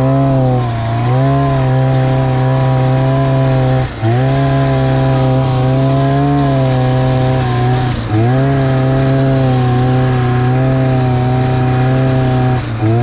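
Snowmobile engine running hard at a steady pitch, with the revs dropping briefly and picking straight back up about a second in, at about four and eight seconds, and near the end, as the throttle is eased and reopened.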